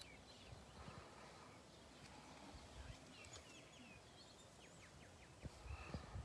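Near silence: faint outdoor ambience with a few faint, short bird chirps around the middle and a few soft low thumps near the end.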